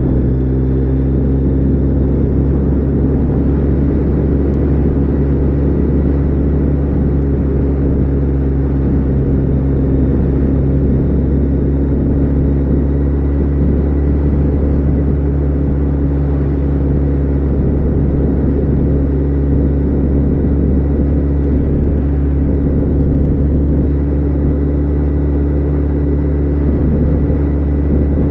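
Kawasaki ZZR 1400's inline-four engine running at a steady cruise, its pitch holding level, under the rush of road and wind noise.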